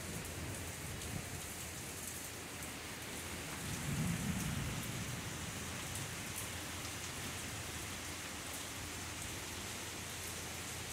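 Heavy rain pouring steadily, with single drops ticking close by and a brief low rumble about four seconds in.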